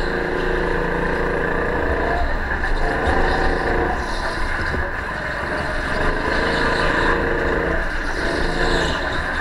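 Go-kart engine heard from the driver's seat, holding a steady pitch, then dropping and climbing again about three times as the kart slows for corners and accelerates out, under a constant hiss.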